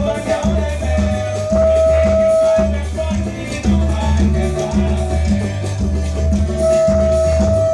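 Instrumental music with an evenly pulsing bass line, shaker-like percussion and long held notes, without singing.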